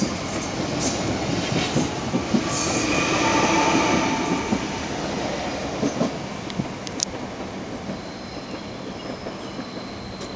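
A 10-car VIRM double-deck electric intercity train pulling out and passing close by, its wheels clacking over rail joints with some squealing. The sound swells and then fades as the last cars move away.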